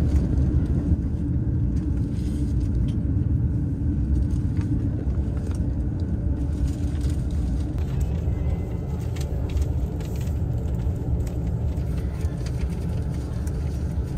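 Electric commuter train running, heard from inside the carriage: a steady low rumble of wheels on the rails and running gear.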